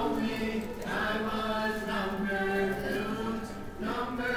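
Chant-style singing by voices in long held notes that slide from one pitch to the next, with no clear drumbeat.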